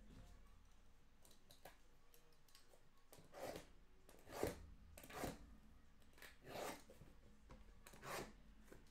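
A blade cutting through card-box packaging in about five short slicing strokes, spaced about a second apart.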